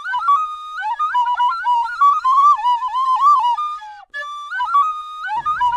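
Flute playing a short melody with notes that step and slide between pitches; it breaks off about four seconds in and starts up again a moment later.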